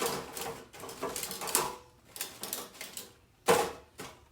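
Rustling and clattering handling noises as gift packaging is opened, in short irregular bursts, the loudest about three and a half seconds in.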